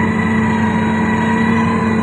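Heavy road-construction machine's diesel engine running steadily at a constant speed, with a steady drone.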